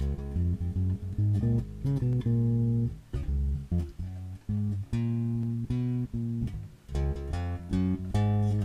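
Harley Benton PB Shorty short-scale electric bass with a passive precision pickup, plugged in directly with no effects, playing a line of plucked notes, some held for about a second.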